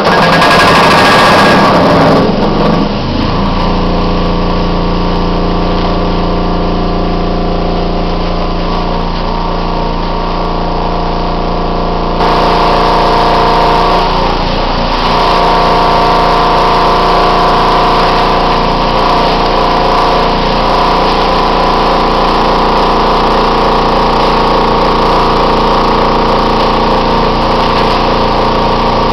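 Sawdust-feeding machine running: a steady motor hum with several held tones over the hiss of sawdust pouring through its hopper chute. It comes on suddenly at the start, noisier for the first couple of seconds, and gets a little louder and hissier about twelve seconds in.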